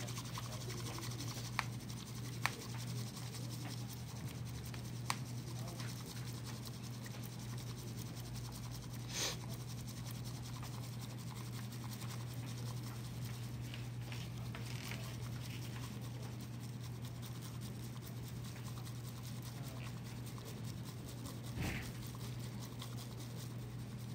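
Bamboo matcha whisk (chasen) scraping and swishing through matcha in a ceramic bowl, whisked steadily into a froth. A constant low hum runs underneath, and a few short clicks sound during the whisking.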